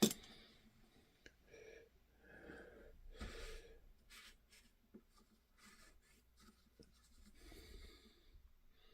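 Faint handling noises of small petcock parts at a workbench: scattered light scratches, rustles and ticks, with a sharp click at the start and a dull knock about three seconds in.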